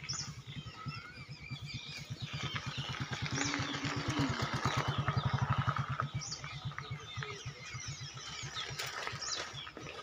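Motorcycle engine running with a fast, even low pulse. It grows louder towards the middle and then fades. Bird chirps are heard above it.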